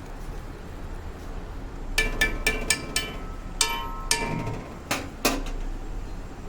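Metal utensil clinking against a steel cooking pot: about nine sharp metallic knocks over some three seconds, starting about two seconds in, several ringing briefly.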